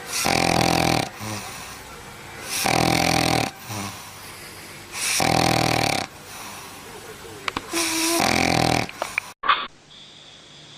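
A Labrador retriever snoring in its sleep: four loud, rasping snores about a second long, roughly every two and a half seconds. Near the end the snoring cuts off abruptly, leaving a quiet hiss.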